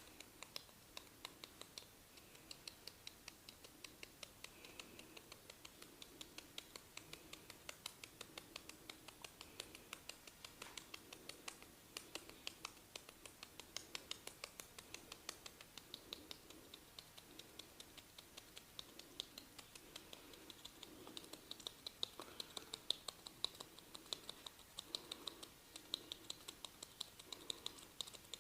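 Rapid, irregular soft clicks and scratches from a barber's fingers working through the hair and scalp during a head massage, about three to four a second, growing louder in the last several seconds.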